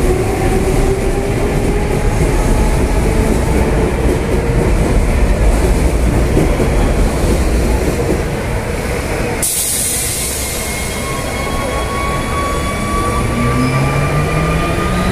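Medellín Metro trains pulling out of the station: a rising electric whine from the motors as the train gathers speed, over the rumble of wheels on the rails. About nine seconds in the sound breaks off abruptly, and a second train's whine starts to climb as it moves off.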